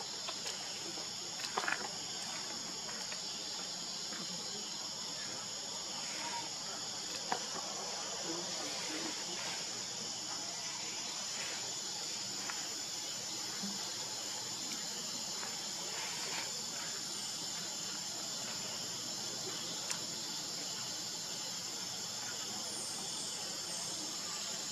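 Steady, unbroken high-pitched drone of a chorus of insects, with a few short sharp clicks now and then.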